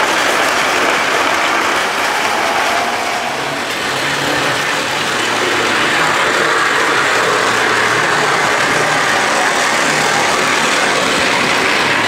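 O gauge tinplate model trains running on three-rail track, a steady loud rumble and rattle of wheels on the rails that dips briefly about four seconds in.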